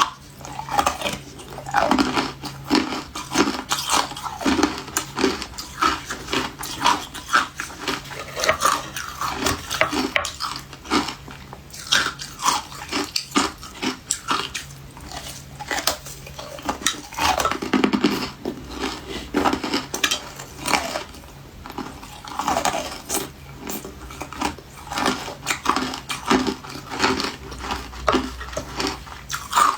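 A person biting and chewing refrozen ice: dense, continuous crunching.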